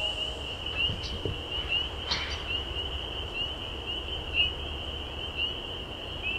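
Chorus of frogs calling: a steady high trilling made of many short, rising peeps, over a low rumble.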